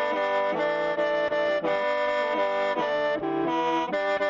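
Music played on a reedy, accordion-like free-reed instrument: sustained chords that move to a new chord every half second to a second.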